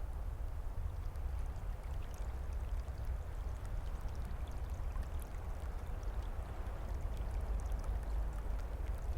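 Steady rushing noise with a deep low rumble and faint scattered ticks.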